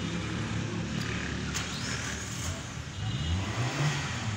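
Toyota Corolla GLi's VVT-i four-cylinder petrol engine idling under the open hood with a steady low hum. About three seconds in, its pitch and loudness rise briefly.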